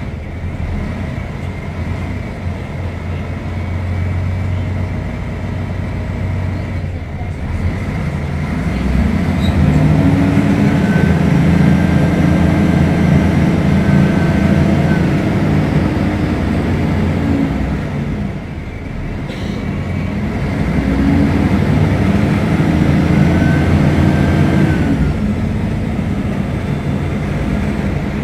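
Diesel engine of a Mercedes-Benz O500UDA articulated bus under acceleration: the engine note climbs steadily in pitch and loudness for several seconds, drops away about two-thirds of the way in, then climbs again.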